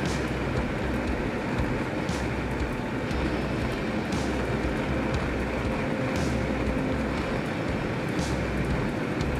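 Regional Express train running steadily, heard from inside the carriage: an even rumble and running noise with a faint steady hum. A short high hiss recurs about every two seconds.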